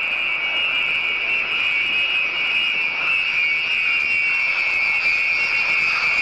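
Boeing B-52 Stratofortress's eight jet engines on landing approach with the gear down: a steady high whine over a rushing noise, slowly getting louder as the bomber nears.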